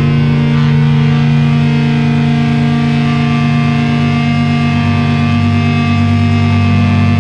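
Crust punk band's distorted electric guitars holding one sustained chord, a dense steady wall of noise with no drum beat.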